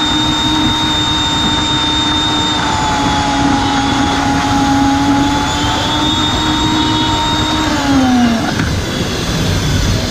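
Electric blender motor running steadily with a high whine while blending pomegranate into juice. About eight seconds in, the whine falls in pitch and dies away as the motor is switched off.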